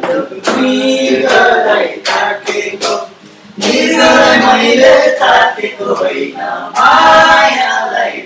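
A small group singing loudly together to strummed acoustic guitars, with a short break in the singing about three seconds in.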